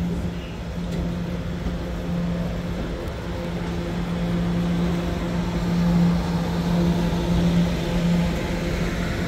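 An R211A subway car running, heard from on board: a steady low hum over a dense rumble, swelling a little about six seconds in.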